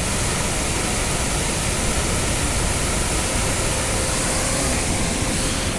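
Narmada River waterfall: a steady rush of falling water.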